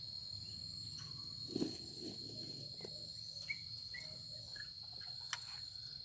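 Crickets trilling in one steady high note, with a few faint short bird chirps and a soft thump about a second and a half in.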